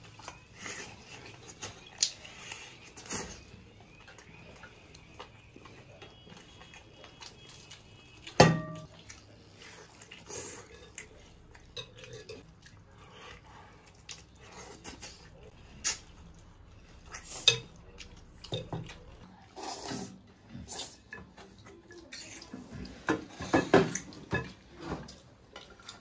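Tableware clinking during a meal: scattered knocks and clicks of a stainless-steel ladle and bowls, with quiet eating sounds between. There is one sharp ringing clink about eight seconds in, and a quick run of clatter near the end as the ladle scoops in the soup bowl.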